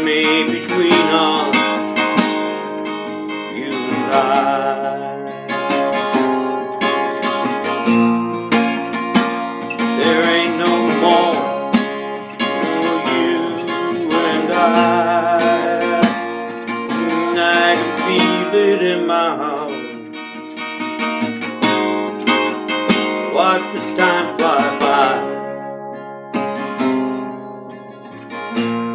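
Epiphone EL-00 parlor acoustic guitar strummed with a flat pick in a steady folk-rock rhythm, with a wavering melody line above the chords that comes and goes.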